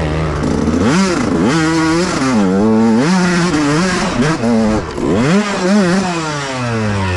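Dirt bike engine revving hard, its pitch surging up and dropping back about once a second as the throttle is opened and closed, then falling away near the end.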